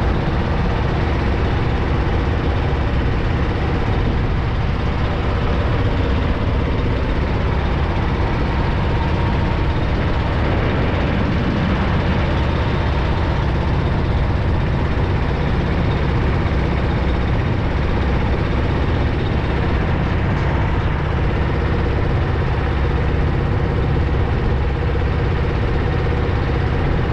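Motorboat engine running steadily, a continuous even drone.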